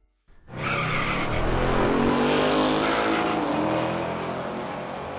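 A car engine running at high revs, loud and steady at first, then its pitch easing down slightly as it slowly fades.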